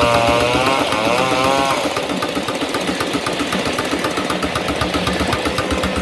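Case portable steam engine driving a sawmill. A high whine wavers and rises, then stops about two seconds in, leaving the steady, even beat of the running machinery.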